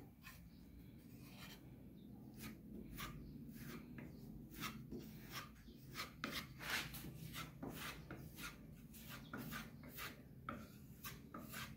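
Metal putty knife pressing and scraping wood filler paste into a wooden tabletop: a run of short, faint scrapes at an uneven pace that start about a second and a half in.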